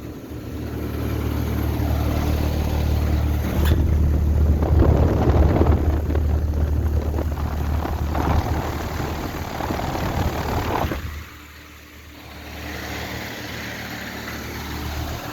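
2017 Carrier Sentry heat pump outdoor unit running in heat mode: a steady low hum with a rushing noise over it, both dropping in level about eleven seconds in.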